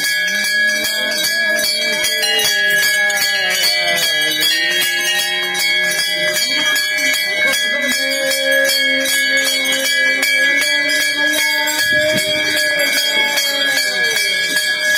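Brass temple bells rung over and over, strikes several a second, their clangs ringing on and overlapping. A crowd's voices run underneath.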